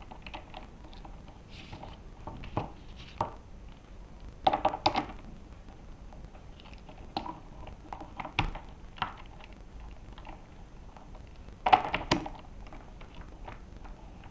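Clicks and knocks of hard parts being handled while a wheel is fitted onto an electric skateboard's truck axle and a skate T-tool is set to the axle nut. Two louder clusters of clatter, about five seconds in and a couple of seconds before the end.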